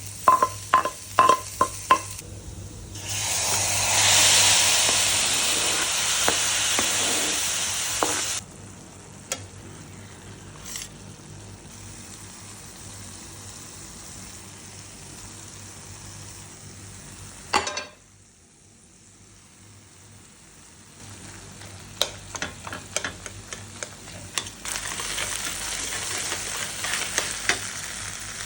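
Food frying in a hot pan. A few sharp clicks of a utensil come first, then a loud sizzle starts suddenly about three seconds in, as food goes into the hot oil. It settles to a steady, quieter frying sound, and near the end there are more utensil clicks and scrapes as the sizzle swells again.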